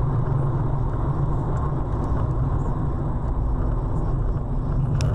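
Steady low rumble of a car driving at highway speed, engine and road noise heard from inside the cabin, with a brief click near the end.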